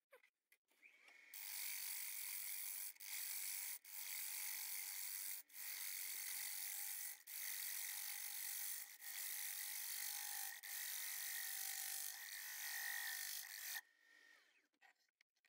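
Gouge cutting the inside of a spinning macrocarpa pine bowl on a wood lathe: a steady hiss of shavings being peeled off, in a run of passes that break off briefly about every second and a half. The cutting starts about a second in and stops shortly before the end.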